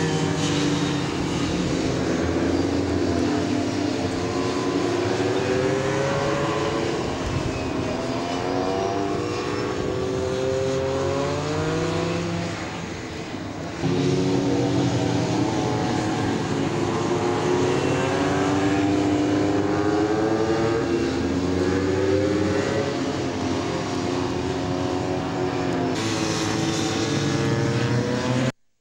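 Honda RC30 racing motorcycle's V4 engine at full throttle on a circuit. Its note climbs through the gears, dropping briefly at each upshift. It fades somewhat after about twelve seconds and jumps back loud a moment later.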